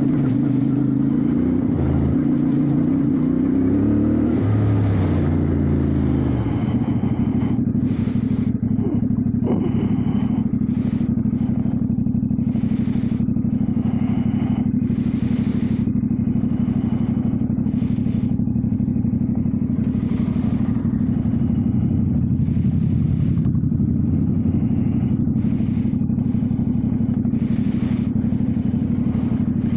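Motorcycle engine running while riding. Its pitch rises and falls with the revs over the first six seconds, then it settles into a steady drone. From about eight seconds in, short rushes of higher hiss and clatter come and go over it.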